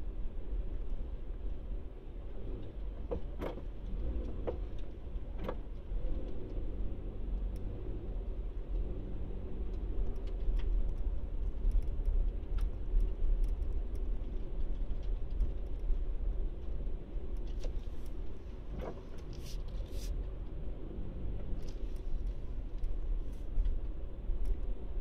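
Car driving at low speed, heard from inside: a steady low engine and road rumble, with a few light clicks and rattles now and then.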